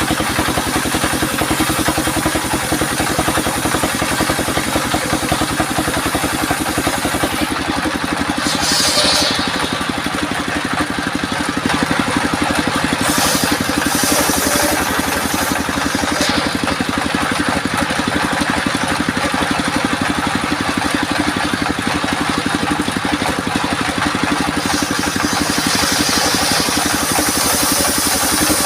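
Homemade sawmill circular saw and its drive engine running steadily with a fast, even pulsing drone. A hissy higher sound swells briefly about nine seconds in, again a few seconds later, and near the end.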